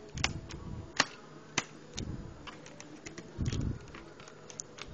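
Sharp plastic clicks and taps, with a few dull knocks, from a 2000 Honda Accord instrument cluster's parts being handled and pressed into place. The two loudest clicks come about a second and a second and a half in.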